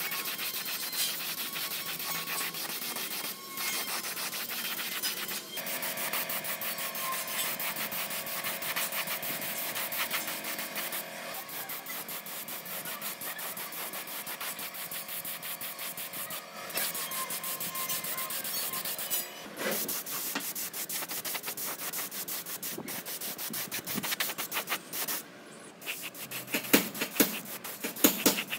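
Sanding of a part: a dense run of rapid abrasive rubbing strokes, with a few sharper knocks near the end.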